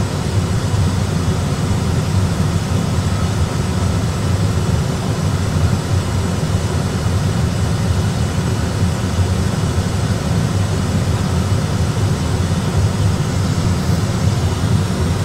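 Airbus A320 cockpit noise: a steady, even low rumble of airflow and engines, with no distinct events.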